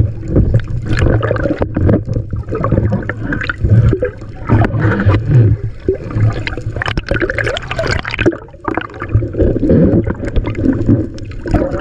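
Seawater gurgling and sloshing right at a camera's microphone in rough waves, with frequent splashes and bubbling.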